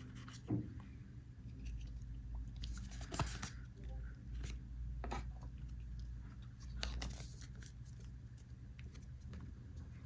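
Trading cards and their foil pack wrapper being handled: scattered light clicks and scrapes, with a couple of brief rustles, over a low steady hum.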